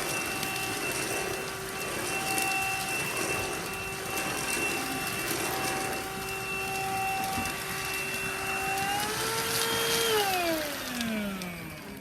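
Beldray Airgility cordless handheld vacuum cleaner running with a steady whine. Near the end its pitch rises slightly, then it is switched off and the motor winds down with a falling whine.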